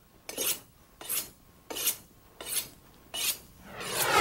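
A steel knife blade being honed on a sharpening steel whose point rests on a cutting board. Five even downward strokes, each a short metallic scrape, come about one every 0.7 seconds. A rising whoosh swells near the end.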